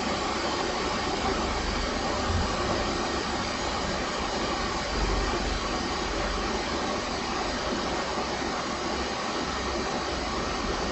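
Steady whooshing hiss of a running fan, even throughout with a low rumble beneath.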